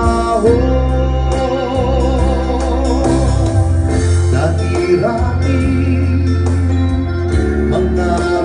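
Live band music: keyboard and acoustic guitar playing over a steady low bass, with a male singer holding a long wavering note through the first few seconds.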